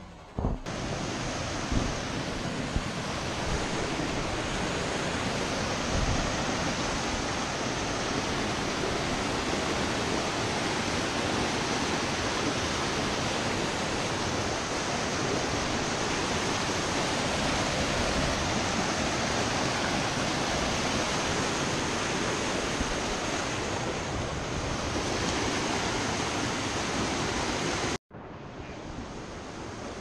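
Rushing creek water pouring over rocks, a steady loud rush. It starts abruptly less than a second in and cuts off abruptly near the end, giving way to a quieter rush, with a few knocks in the first several seconds.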